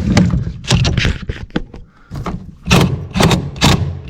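A series of separate knocks and thuds with some rustling, from hands, tools and body bumping around the boat's cramped compartment while hoses and clamps are fitted.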